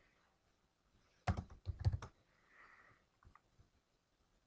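Computer keyboard typing: a quick run of four sharp keystrokes between about one and two seconds in, followed later by a couple of faint clicks.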